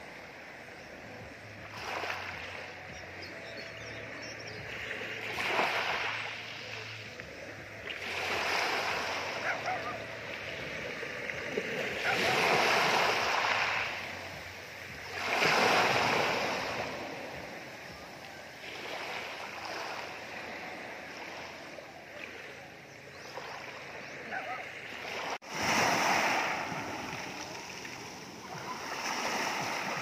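Small sea waves breaking on a beach of rounded pebbles and washing back over the stones, the surf swelling and fading every few seconds.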